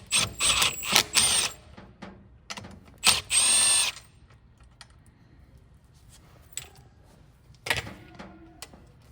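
Power drill running in two short bursts, backing out the two bolts that hold the e-bike's rear brake caliper: a broken, stop-start spin at first, then a steady run of about a second. A few light clicks and a knock of metal parts follow.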